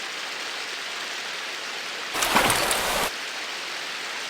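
Steady rush of a fast mountain stream. About two seconds in, a louder, rougher burst of noise lasts about a second and then cuts off.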